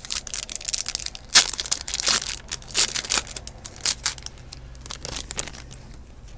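Trading cards being flipped through by hand: a quick, dense run of crinkling snaps and slides, loudest about a second and a half in, thinning out after about four seconds.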